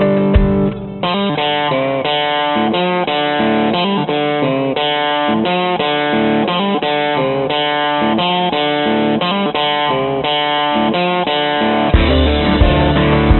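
Background music: a rhythmic guitar track with quick picked notes, the bass and drums coming back in heavily about twelve seconds in.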